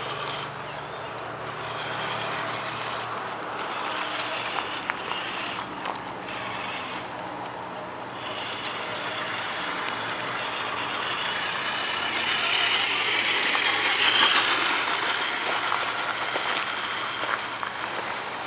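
Tamiya Toyota Tundra RC crawler truck's electric motor and gears running as it climbs over dirt and rocks, with scattered clicks, growing louder past the middle.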